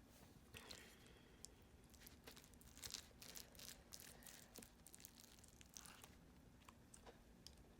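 Faint, irregular crunching with small clicks and crackles, the close-up sounds of someone eating, busiest a few seconds in.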